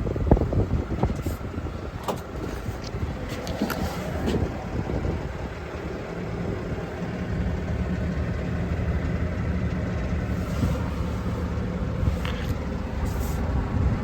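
An engine running at a steady idle, its low hum settling and growing steadier about halfway through. A few clicks and knocks come in the first few seconds.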